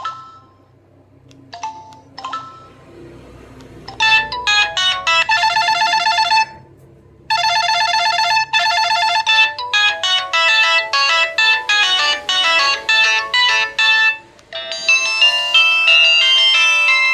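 Samsung SCH-A815 mobile phone playing ringtones through its small speaker. A few short separate beeps come first, then a polyphonic ringtone melody starts about four seconds in, breaks off briefly, and resumes, and a different, busier ringtone takes over near the end.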